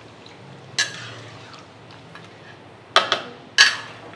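Long-handled metal ladle scraping and clanking against a large metal wok while stirring chicken pieces through a wet chili spice paste. There is one stroke about a second in, then two louder, sharper ones near the end.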